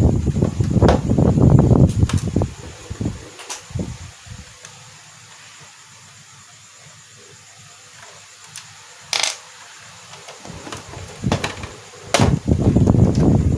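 Handling noise and sharp clicks of a projector's plastic casing being worked open: dense rustling and knocking at first and again near the end, with a few separate sharp clicks in a quieter middle stretch.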